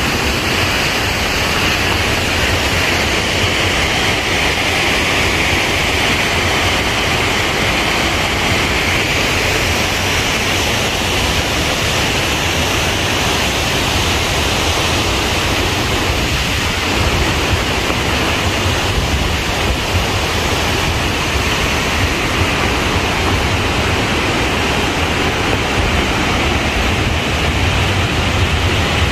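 Loud, steady rush of water falling over a dam.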